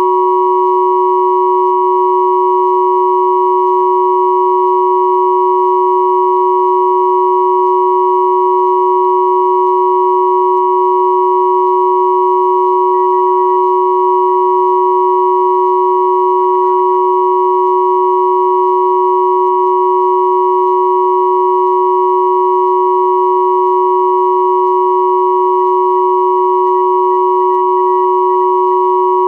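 Steady mix of pure sine tones at 369, 963 and 1111 Hz, held unchanged, with a few fainter higher tones above them.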